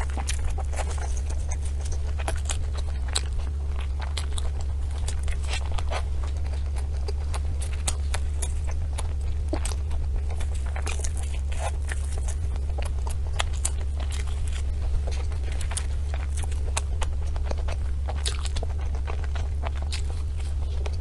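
Close-miked mouth sounds of eating desserts: a dense, irregular stream of small crunches, clicks and crackles as the food is bitten and chewed, over a steady low hum.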